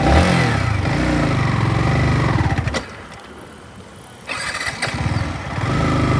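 Yamaha MT-15's 155 cc single-cylinder engine being started and revved on a nearly empty tank, running unevenly. It drops away about three seconds in and picks up again a second and a half later: fuel starvation as the last of the petrol runs out.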